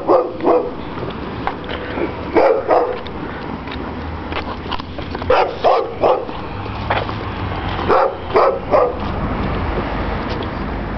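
A girl barking like a dog in four short runs of two or three barks, a couple of seconds apart, over a steady low background rumble.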